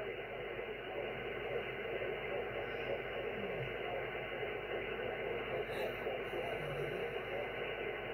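Xiegu G90 shortwave transceiver receiving 20-metre upper sideband on 14.165 MHz with no station on frequency: a steady, thin hiss of band noise, cut off sharply above and below like a telephone line.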